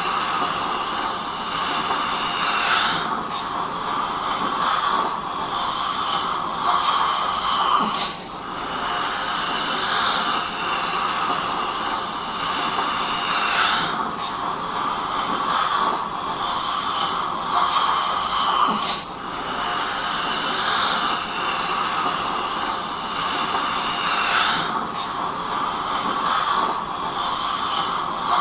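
Dentist's suction tool running, a continuous sucking hiss whose tone shifts every five or six seconds.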